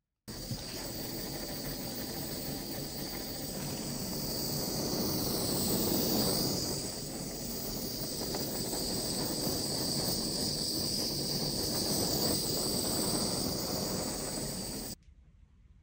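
Handheld gas torch burning with a steady hiss while it is swept over freshly poured epoxy to pop air bubbles. It starts abruptly and cuts off suddenly about a second before the end.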